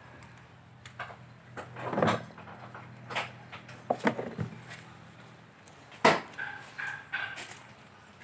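Two kittens play-fighting on a mat, with scuffling and several sharp knocks, the loudest about two seconds and six seconds in.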